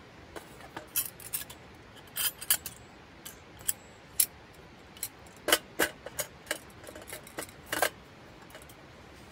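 Sharp metal clicks and clinks at irregular intervals as the folding wire pot-support legs of a SOTO gas stove are swung out and set in place, the loudest about halfway through and again near the end.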